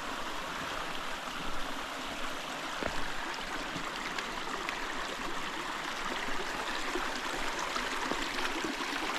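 A small mountain creek running over rocks, a steady rushing of water.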